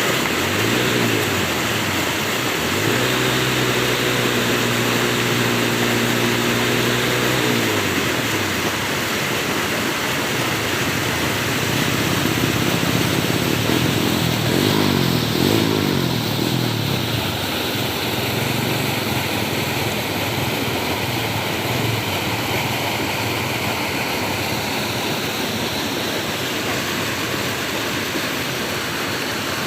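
Steady rush of flowing water, with a distant engine droning underneath through the first half; the drone holds one pitch for a few seconds, then glides up and down before fading out.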